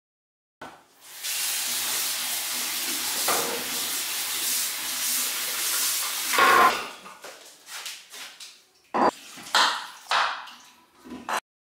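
Kitchen tap running steadily into a sink for about five seconds. Then a wooden chopping board is set down on the countertop with a loud knock, followed by a few separate knocks of a knife cutting strawberries on the board.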